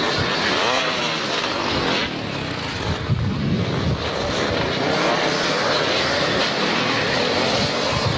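Off-road motocross motorcycles racing past, their engines revving hard with the pitch rising and falling as riders work the throttle and change gear.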